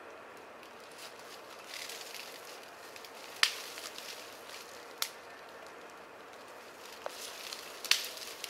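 Dead, ice-coated branches being snapped off a small tree by hand, with twigs rustling between three sharp cracks; the loudest crack comes near the end.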